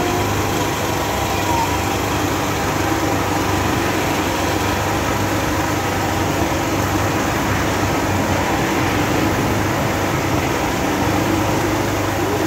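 A machine or engine running steadily with a low hum, without a break or change.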